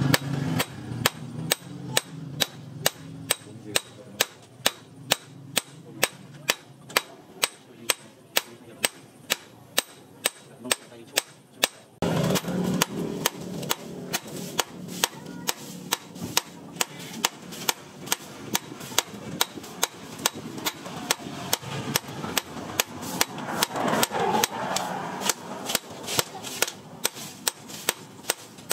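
Hand hammer striking a hot steel knife blade, forged from a motorbike sprocket, on a small steel anvil: a steady run of sharp metal-on-metal blows, about two to three a second. The background grows louder about twelve seconds in.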